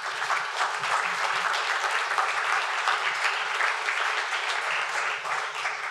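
Audience applauding, a dense steady clapping that eases off near the end.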